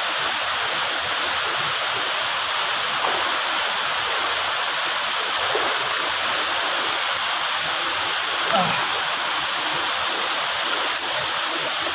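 Alitap Falls: falling water rushing steadily in an even, unbroken hiss.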